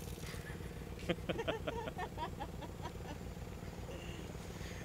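A man laughs in a quick run of short 'ha's for about two seconds, starting about a second in, over the steady putter of a Honda 50's small four-stroke single-cylinder engine idling.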